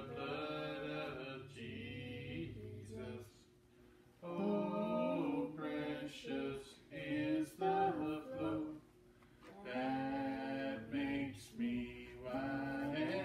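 A young boy singing a gospel hymn unaccompanied, in sung lines broken by two short pauses for breath.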